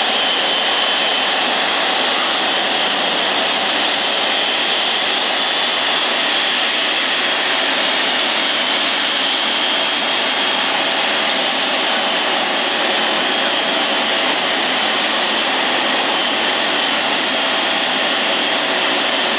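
Boeing 777-300ER's GE90-115B turbofan engines running as the airliner taxis slowly: a steady jet rush with a thin, high steady whine over it.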